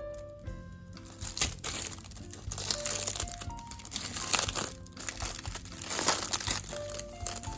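Packaging crinkling and rustling as it is handled, in irregular bursts, over soft background music.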